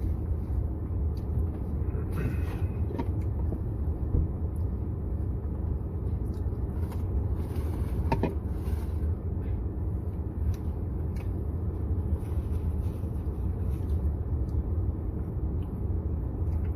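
Steady low rumble of a car's engine heard from inside the cabin, with scattered faint clicks and rustles on top.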